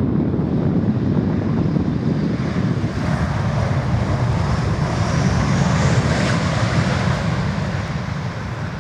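Boeing 737-800 touching down and rolling out: steady jet noise from its CFM56-7B turbofans swells in the middle as reverse thrust is applied, then fades near the end.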